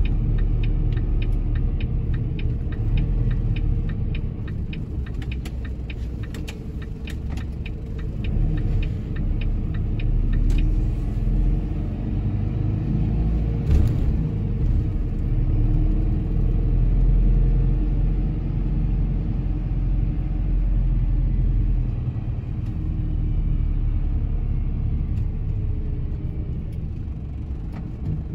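Truck engine and road noise heard inside the cab as a steady low rumble while driving. A regular ticking, two or three ticks a second, runs through about the first ten seconds and then stops, the turn indicator clicking as the truck turns off the intersection. A single sharp knock comes about halfway.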